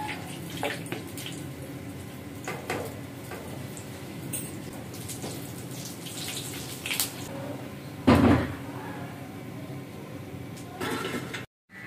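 Kitchen water sounds, steady splashing or running water, as fried gram-flour dumplings are soaked in cold water and squeezed out. A few light clinks, one louder knock about eight seconds in, and a brief cut-out near the end.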